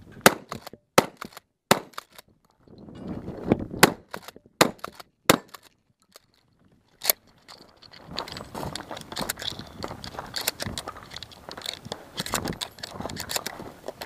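A Remington 870 Tactical pump-action shotgun firing a string of loud shots, two groups of three about 0.7 s apart and then a single shot a little later. After that comes a run of smaller clicks and clatter as shells are loaded from the side-saddle carrier.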